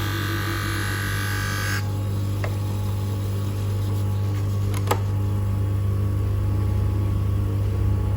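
Manual lens edging machine's motor running with a steady hum. A high hiss of the lens being ground on the stone stops about two seconds in, and there are two faint clicks later.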